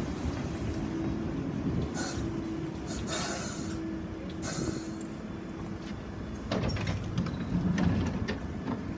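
London Underground 1973 Stock Piccadilly line train standing at the platform after pulling in, with a low rumble and a steady hum, three short hisses, then its sliding doors opening about six and a half seconds in.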